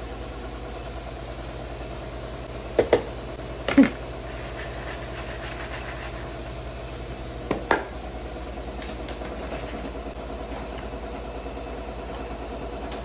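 Sharp clinks of dry dog food and a stainless-steel dog bowl being handled, about three and four seconds in and again near eight seconds, over a steady low hum.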